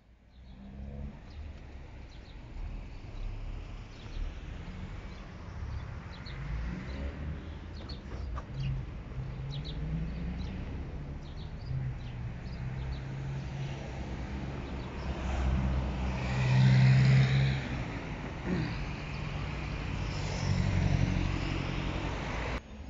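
Street traffic going past, with one vehicle passing loudly about two-thirds of the way through and another near the end, and birds chirping now and then.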